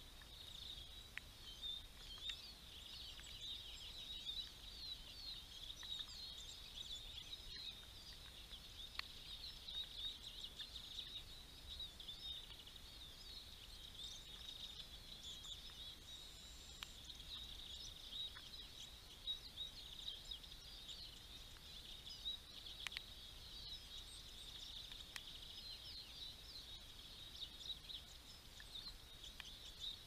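Faint, dense chorus of many small songbirds calling and twittering at once, a steady stream of short high chirps.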